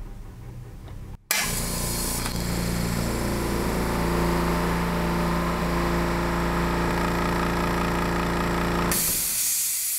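Small electric air compressor starts about a second in and runs steadily, pumping up its tank from empty. Near the end the motor sound stops and a hiss of air remains.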